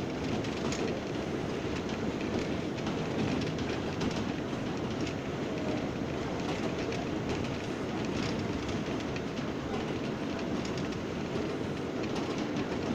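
R179 subway car running between stations, heard from inside the car: a steady rumble of wheels on rail, with occasional faint clicks.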